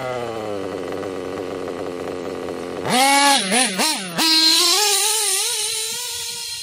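Kyosho KE25 two-stroke nitro engine in a Kyosho Inferno Neo ST truggy, freshly broken in and tuned, idling steadily. About three seconds in it is blipped hard three times, then held at full throttle, its pitch climbing as the truggy speeds away and the sound fades.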